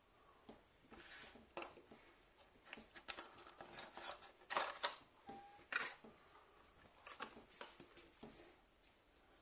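Quiet handling of a small cardboard box and the plastic module and current clamp inside it: scattered rustles, scrapes and light clicks, with two sharper snaps around the middle.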